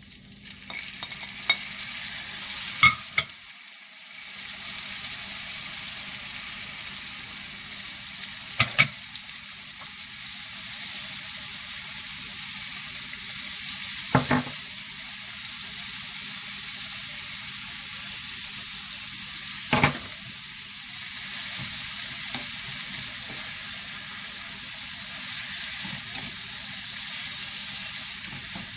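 Kimchi fried rice sizzling in a hot pan while being stirred. A utensil knocks sharply against the pan four times, about every five or six seconds.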